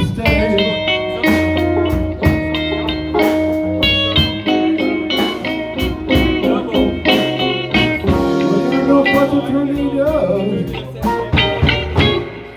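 Band playing a slow blues, with guitar picking lead notes over a bass line and regular drum strikes; no singing.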